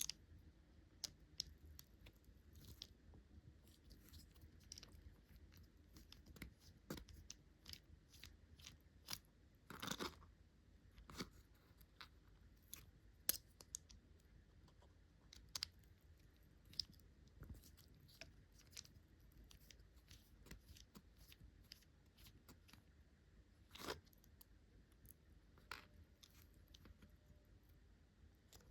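Irregular light clicks and scrapes of small metal parts and a precision screwdriver being handled while working the heatsink off an M.2 SSD, with a longer scrape about ten seconds in.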